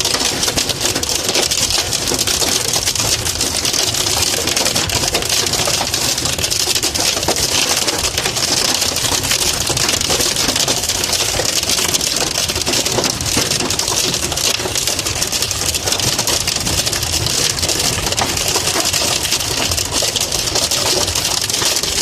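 Hail pelting a car's roof and windshield in a dense, steady rapid clatter, heard from inside the moving car.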